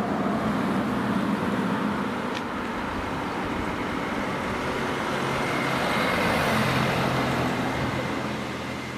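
Road traffic: a car passing on the street. Its noise swells about six seconds in and fades near the end.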